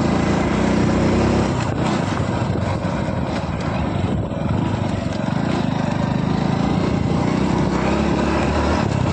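Hero Splendor motorcycle's small single-cylinder four-stroke engine running steadily while the bike rides along a dirt track, mixed with a constant rush of wind and tyre noise.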